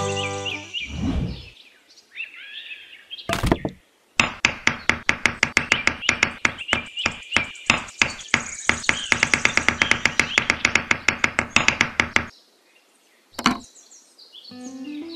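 Small hammer tapping the top of a thin wooden dowel to drive it into sand as a miniature post: a quick, even run of sharp knocks, several a second, lasting about eight seconds, with a single knock a little before and one after.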